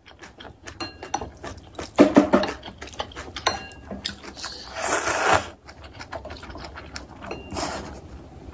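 Close-up eating sounds: chewing with a steady run of wet mouth clicks, then a long slurp of instant ramyeon noodles about five seconds in and a shorter slurp near the end.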